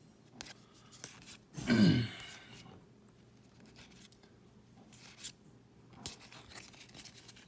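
Pokémon trading cards being handled: soft rustling, sliding and scattered light clicks. About two seconds in there is one short, louder sound that falls in pitch.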